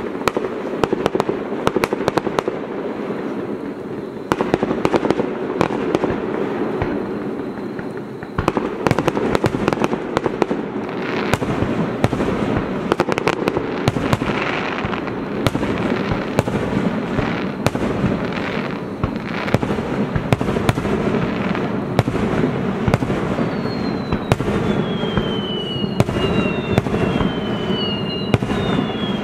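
Fireworks display: a rapid run of aerial shell bursts and crackling over steady falling rain. Near the end, three high whistles slide down in pitch.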